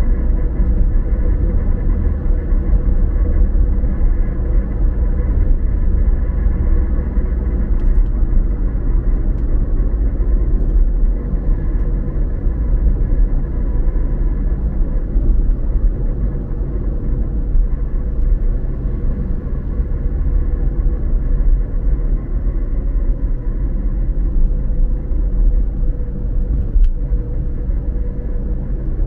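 Car driving at a steady speed: an even, low rumble of engine and road noise, with a faint steady hum, unbroken throughout.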